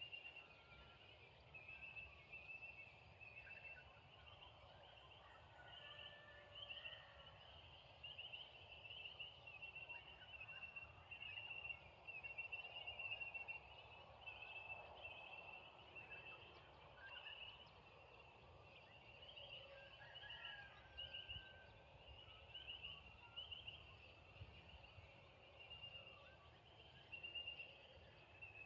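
Faint outdoor evening ambience: high chirping trills from small animals repeating about once a second, with a few lower chirps now and then over a low, steady rumble.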